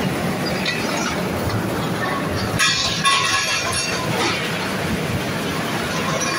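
Hot-rolling steel mill line running: steady rumble and clatter of the rollers as a red-hot steel bar travels through the stands and along the roller table. About two and a half seconds in, a loud hissing screech lasts about a second.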